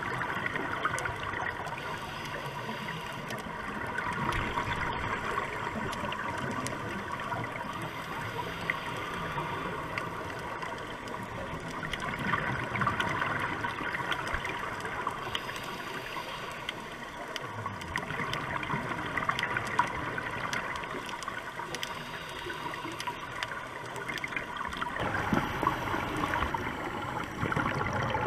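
Underwater sound of a scuba dive: a steady watery rush with gurgling, swelling every several seconds, typical of a diver's regulator exhaust bubbles.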